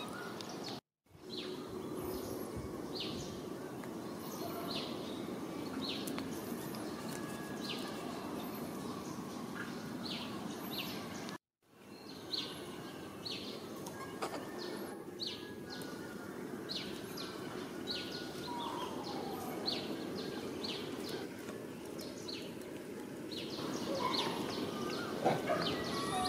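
Outdoor ambience: a steady background hiss with small birds chirping over it, short high chirps repeating every second or so. The sound cuts out to silence twice, briefly, about a second in and about eleven seconds in.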